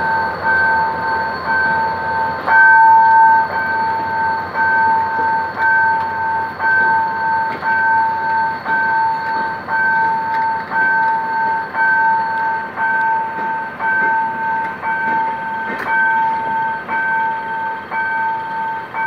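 Electronic level-crossing warning signal beeping a two-tone note about once a second, steadily throughout. Underneath it runs the rolling rumble of passenger coaches passing on the tracks.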